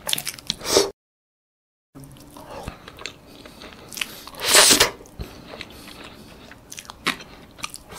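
Close-miked eating sounds: wet chewing and lip smacks, with a loud slurp about four and a half seconds in as passion fruit pulp is sucked from its shell. The sound cuts to dead silence for about a second near the start.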